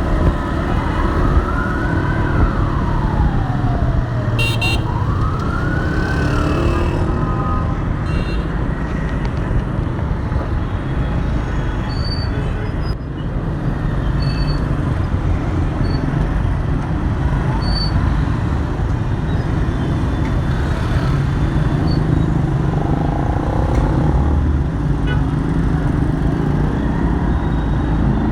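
Dense city road traffic: a steady rumble of engines and tyres. In the first few seconds an ambulance siren wails slowly up and down, then fades out, and the traffic noise continues.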